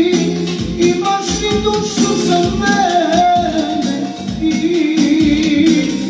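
Live band music with a male singer singing into a microphone over a steady drum beat.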